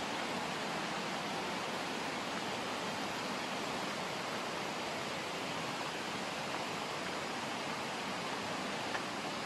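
Steady rush of the Radovna, a fast mountain river, running over rapids: an even, unbroken water noise.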